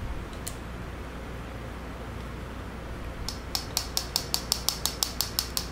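Rapid, even metallic clicking, about six clicks a second, starting about three seconds in: a small hydraulic relief valve part shaken by hand so its inner piece rattles back and forth, a check that it moves very freely in its bore.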